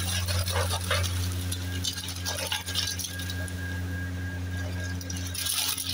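Large aluminium pressure cooker being opened: the metal lid clinks and scrapes in short bursts as it is lifted off and handled, over a steady low hum.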